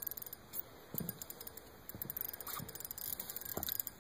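Fishing reel ticking irregularly as line is wound in on a hooked fish, with a few soft knocks.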